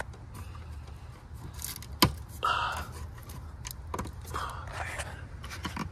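Hands working the plastic wiring-harness connectors on a car's engine control module: light clicks, rattling and scraping, with one sharp click about two seconds in.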